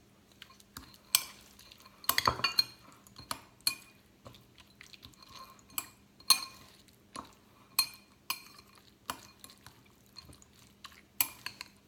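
A utensil clinking and scraping against a bowl while canned cat food is stirred into a moist mix of ground chicken and soaked kibble: irregular taps and clicks, about one or two a second.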